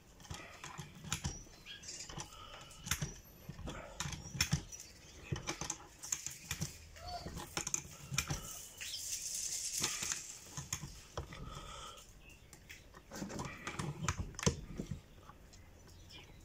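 Steel wrenches clicking and knocking against a hydraulic hose's reusable fitting as the nipple is screwed into the hose, with gloved hands and a work jacket rustling. Irregular sharp metal clicks throughout, and a longer rustling scrape about nine to ten seconds in.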